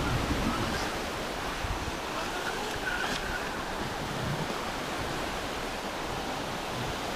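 Surf breaking and washing up a sandy beach, with wind noise on the microphone.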